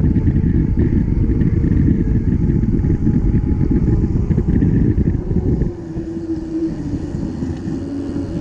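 Wind buffeting the microphone of a bike-mounted camera while riding, with road-bike tyres rolling on asphalt: a heavy, low rumble that lessens a little about six seconds in.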